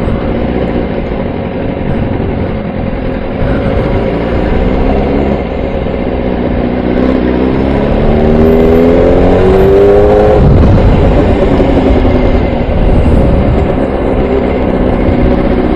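Superbike engine running as the motorcycle moves slowly through traffic. About seven seconds in it revs up in a rising pitch, then drops off suddenly about three and a half seconds later.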